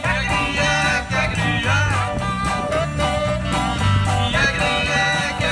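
Live rock and roll band playing an instrumental passage: electric guitar, bass and drums keeping a steady beat under a wavering lead melody line.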